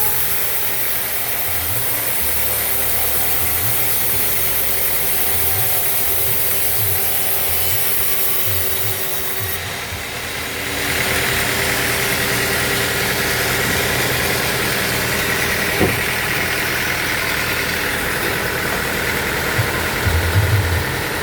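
Band sawmill running steadily, its blade sawing through acacia wood; the sound's character shifts about ten seconds in.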